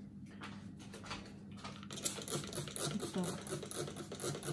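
Hand trigger spray bottle misting water over freshly sown pepper seed trays: a few separate squirts, then from about two seconds in a quick run of squirts, roughly five a second.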